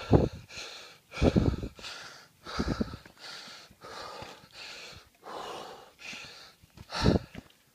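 Heavy breathing of a hiker out of breath on an uphill climb, close to the microphone. Hard breaths come roughly every second and a half, some much louder than others.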